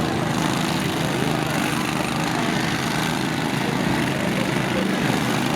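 Lawn tractor engines running together in a steady, unbroken din.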